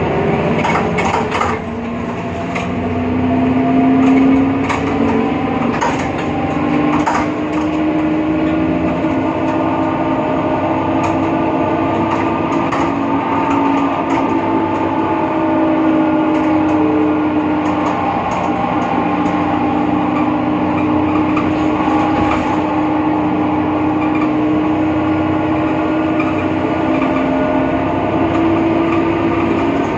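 BredaMenarini Avancity Plus city bus under way: a steady whine from the drivetrain, rising a little early on and then holding with slight wavers, which the uploader traces to a faulty differential. It sits over the Deutz diesel engine's running, with scattered clicks and rattles.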